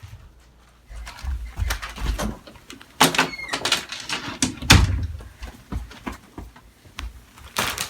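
A mailed package being handled and opened: a run of knocks, thumps, scrapes and rustles, loudest about three seconds in, again just before five seconds, and near the end.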